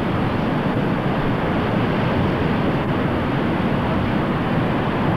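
Steady rush of breaking sea surf mixed with wind buffeting the camcorder microphone.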